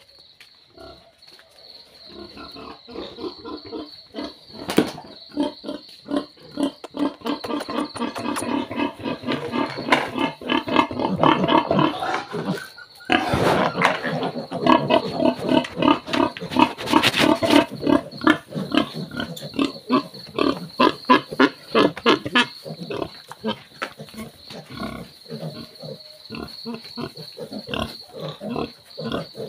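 A litter of piglets grunting rapidly, many short calls a second, at feeding time. The calls build up a couple of seconds in, break off briefly about halfway, and go on while the piglets crowd the feed plate.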